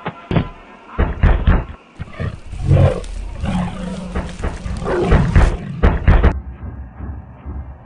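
Lion roaring and snarling, with a few sharp hits in the first couple of seconds; the roar cuts off suddenly about six seconds in.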